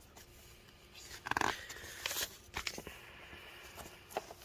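A page of a paperback recipe book being turned by hand: paper rustling in two short bursts, about one and two seconds in, with a few light taps as the page settles.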